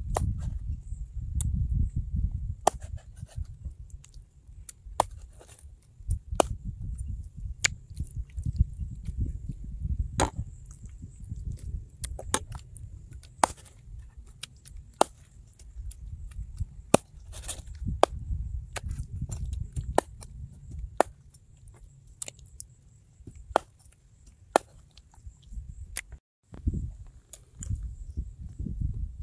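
Knife chopping on a cutting board: sharp, irregular knocks, about one or two a second, over a low rumble.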